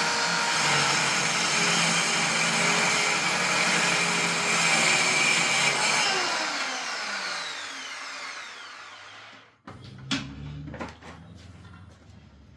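A 1970s-era circular saw running as it cuts through a block of wood, then released about six seconds in and winding down with a falling whine until it stops. A few knocks follow.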